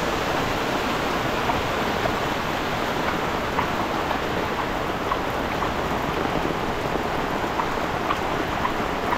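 Heavy rain pouring steadily, mixed with runoff water rushing along a flooded road, with a few sharp ticks of single drops through it.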